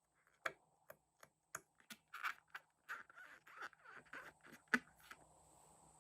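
Scattered light clicks and taps with soft crackling in between, about a dozen small handling noises, as slime-making materials are handled.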